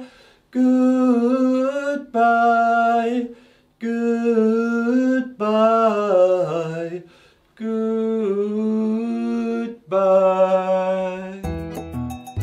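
A man singing unaccompanied in held, sustained notes, several short phrases with brief breaks between them. About a second before the end, instrumental music with plucked strings and a quick steady tick comes in.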